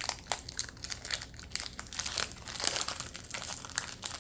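Foil Pokémon booster pack wrapper crinkling and crackling as it is handled and torn open, in a rapid irregular series of sharp crackles.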